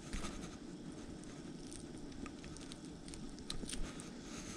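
Faint handling sounds as a minnow is worked onto a jigging spoon's hook: a few small, scattered clicks and rustles over a low background hiss.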